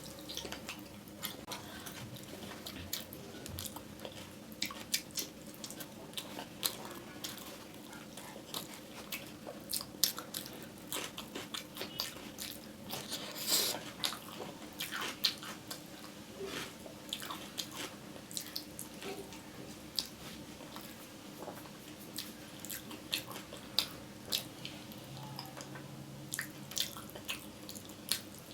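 A person eating close to the microphone: irregular wet clicks and smacks of chewing and biting, with a faint steady hum underneath.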